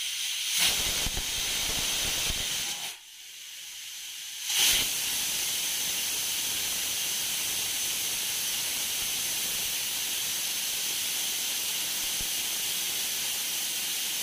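Pressure cooker on a gas stove venting steam: a steady, loud hiss with faint high whistling tones. It drops away for a couple of seconds about three seconds in, then comes back with a louder burst and runs on steadily.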